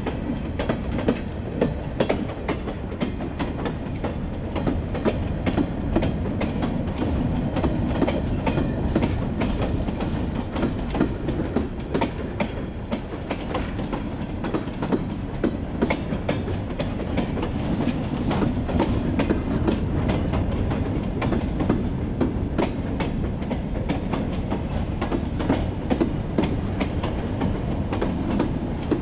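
Freight train covered hopper cars rolling past close by: a steady low rumble with frequent steel wheel clicks and clacks on the rails.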